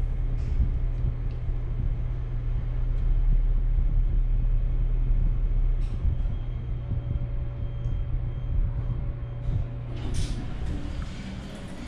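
Elevator car travelling with a steady low hum, which fades about ten seconds in as the car stops and its doors slide open.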